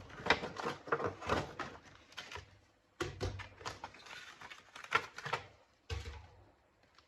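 Clicks, knocks and scrapes of a laptop hard disk being handled and fitted into a hard-disk caddy. They come in two bursts, with a short pause between them, and a last knock near the end.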